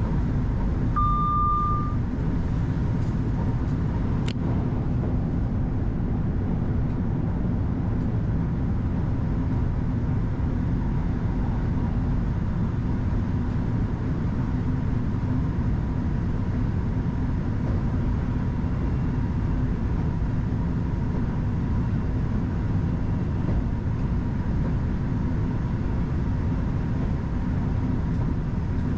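Steady low rumble of a Class 331 electric multiple unit running along the line, heard from the driver's cab. A single short electronic beep sounds about a second in, and a brief click about four seconds in.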